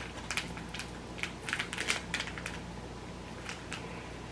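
Light, irregular clicks and crinkles of a plastic seasoning sachet being handled as its powder is emptied onto the noodles. The clicks are closely spaced at first, then come only now and then.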